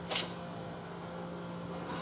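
A single brief metallic scrape-clink about a fraction of a second in, from work on a steel wheel on a manual tire changer, over a steady low hum.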